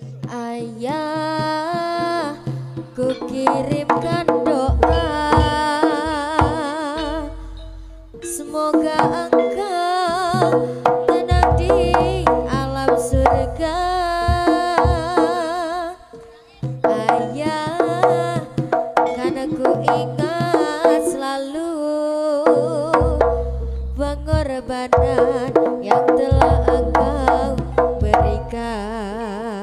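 Live jaranan gamelan music: kendang hand drums and gongs under a high, wavering melodic line. The music drops away briefly about 8, 16 and 22 seconds in.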